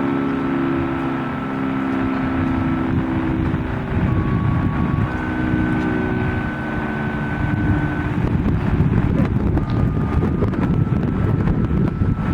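Federal Signal 3T22 three-tone outdoor warning siren sounding its steady full-alert chord, the tones fading and coming back. From about four seconds in, heavy wind buffeting on the microphone.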